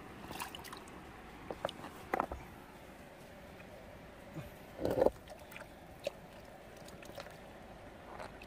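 A hand splashing and sloshing in shallow stream water among rocks, several separate splashes with the loudest about five seconds in, over the steady flow of the stream.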